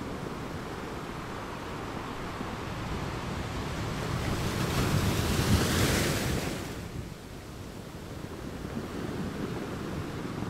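Steady rush of wind and road noise heard from a moving vehicle on a highway. A louder whoosh builds from about four seconds in, peaks near six seconds and dies away by seven.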